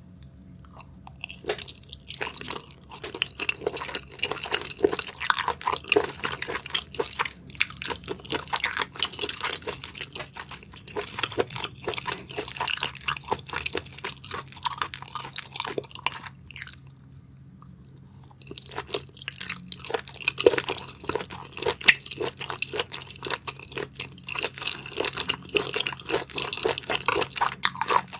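A person chewing mouthfuls of small octopus in a thick chilli sauce: a dense run of wet clicks, smacks and squelches, breaking off for about two seconds a little past halfway, then carrying on.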